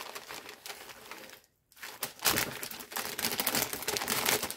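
Small plastic bags of resin diamond-painting drills being handled: the bags crinkle and the drills give off dense small clicks. There is a brief silent gap about a second and a half in.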